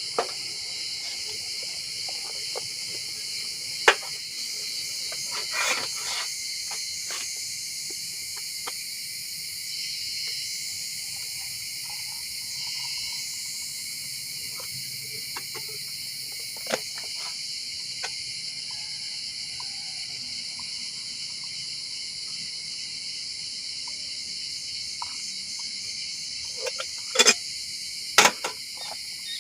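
Steady high-pitched chorus of insects in the forest, with scattered sharp clicks and knocks, the loudest about four seconds in and a few near the end.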